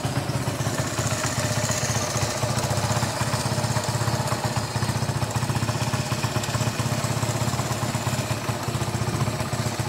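Honda CD 70's single-cylinder four-stroke engine idling steadily with a fast, even putter.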